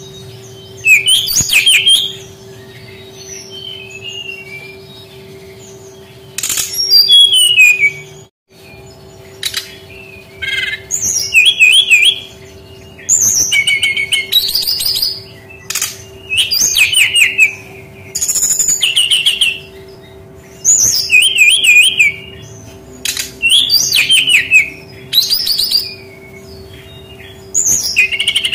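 Brown-chested jungle flycatcher singing: a string of short, rapid, high warbled phrases, each a second or so long, repeated every one to two seconds over a steady low hum. The sound cuts out briefly just after 8 seconds in.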